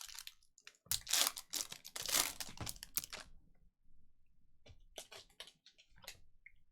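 Trading card pack wrapper crinkling and tearing as a pack is opened, about a second in and lasting a couple of seconds, followed by a few light clicks and snaps of cards being handled.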